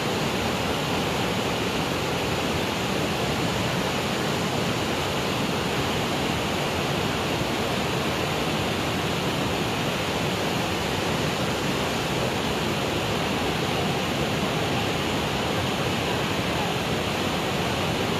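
Floodwater rushing steadily, an even unbroken wash of noise with no change in level.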